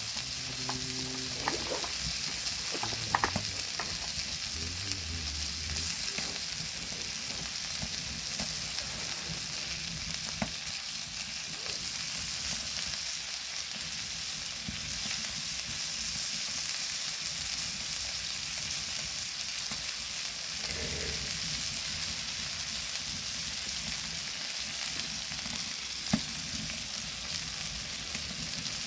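Meat sizzling steadily on a hot flat stone, with a few light clicks.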